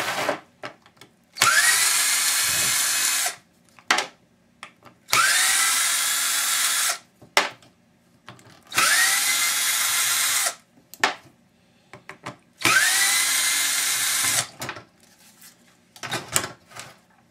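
Power drill run in four bursts of about two seconds each; each burst spins up in pitch, then runs steady. Small clicks and knocks of handling come between the bursts.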